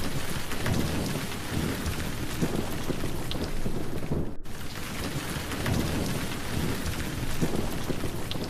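Steady heavy rain falling on the ground, with a low rumble underneath. The sound cuts out for an instant about four and a half seconds in.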